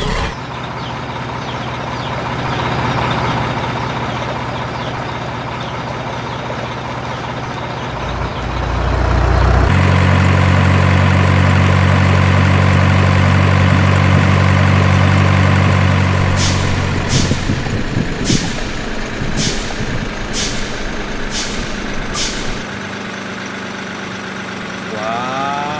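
Heavy truck engine sound effect running steadily, getting louder and deeper about ten seconds in. Over it, seven sharp clicks come about a second apart in the second half.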